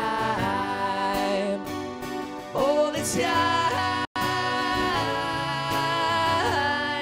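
Acoustic guitar with male singing: long held notes that bend up and down in pitch, without clear words. The sound cuts out completely for an instant about four seconds in.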